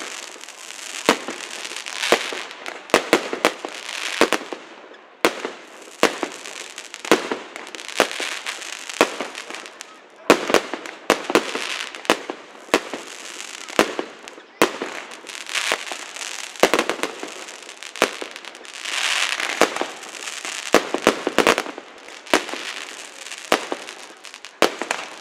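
Aerial fireworks display: a string of sharp bangs, sometimes several in quick succession, with crackling and hissing between them.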